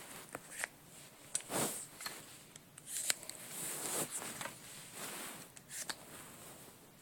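Quiet, irregular clicks and scrapes of hands working on a plastic Nerf shell clip.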